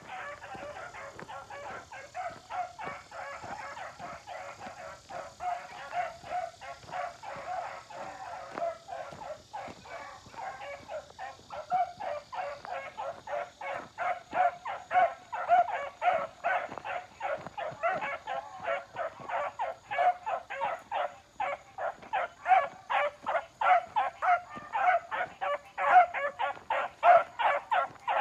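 Three four-month-old puppies barking in a rapid, unbroken run of short barks, getting louder and faster in the second half.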